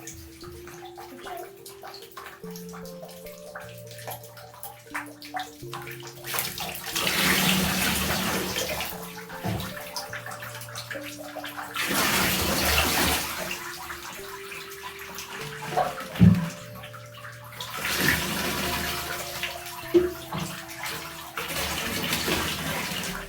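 Water running and splashing in a bathtub during a dog's bath, coming in three long loud bursts with quieter stretches between, and a couple of sharp knocks against the tub.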